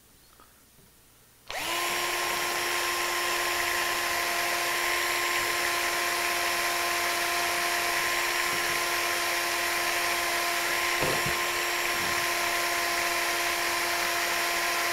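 Electric drill boring a pin hole into a wooden hinge barrel, starting suddenly about a second and a half in and then running at a steady, even speed.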